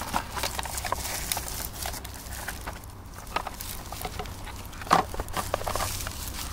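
Rustling and light clicking of a strip of firecrackers being wound around a plastic toy bulldozer, with one sharper knock about five seconds in.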